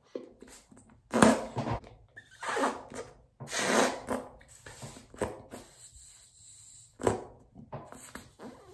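A person blowing hard into a small latex balloon in several forceful puffs of breath, about a second apart with short pauses between. The balloon barely inflates.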